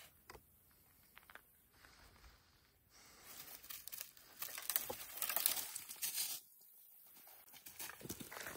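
Rustling and crunching in dry leaf litter and twigs underfoot. It is quiet at first with a few soft clicks, then a denser crackling stretch of about three seconds that stops abruptly.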